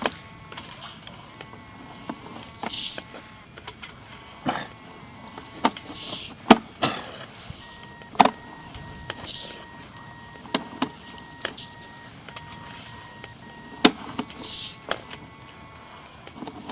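Sewer inspection camera push cable being fed into the line: short rasping hisses every second or two, sharp clicks and knocks, and faint steady tones that switch on and off.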